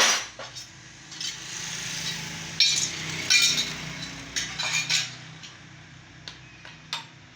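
Metal hand tools clinking and tapping against a motorcycle engine's parts and covers, in a string of sharp clinks that are loudest about three seconds in.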